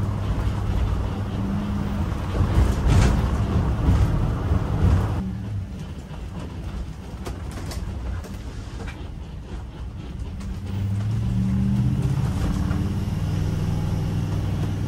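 Ford-chassis motorhome's engine and road noise heard from inside the cab while driving. A louder rush of road noise for the first five seconds, quieter for a few seconds, then the engine hum grows louder and steadier about eleven seconds in.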